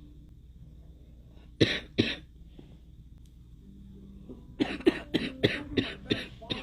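A girl coughing: two sharp coughs about a second and a half in, then after a pause a quick fit of about ten coughs in two seconds near the end.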